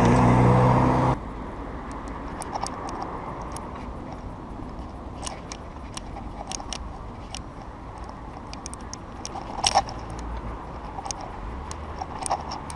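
Bicycle rattling with sharp, irregular metallic clicks and ticks over a steady low rumble of riding. A loud pitched sound fills the first second and cuts off suddenly.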